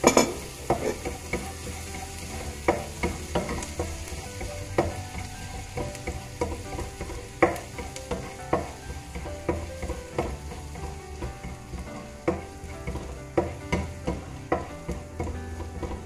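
Minced garlic sizzling in melted butter in a nonstick frying pan, stirred with a spoon that scrapes and knocks against the pan about once a second, with the loudest knock at the very start.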